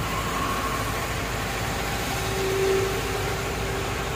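Steady engine rumble and road noise heard from inside a moving vehicle, with a faint steady tone that swells briefly a little past the middle.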